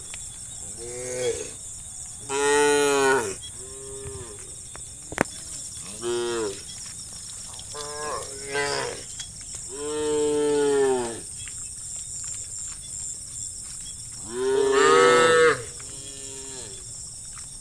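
Cattle mooing over and over, a dozen or so calls, each rising then falling in pitch, the loudest and longest about two and a half, ten and fifteen seconds in.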